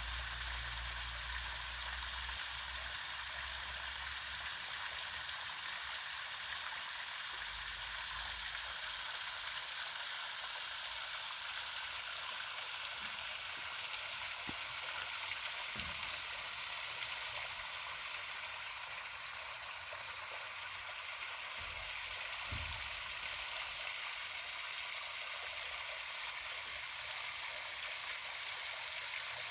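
Runoff water flowing in a small creek: a steady rushing sound, with a few faint low bumps.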